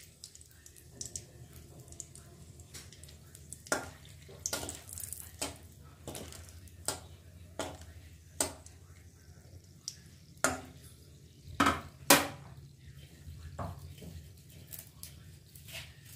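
Wooden spatula stirring and knocking against a metal kadai while dried red chillies and bay leaf fry in a little oil: irregular single knocks and scrapes, the loudest two near the end, over a low steady hum.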